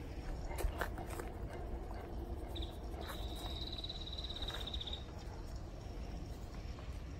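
A high, rapid animal trill lasting about two seconds, starting a few seconds in, over a steady low rumble, with a few sharp clicks in the first second or so.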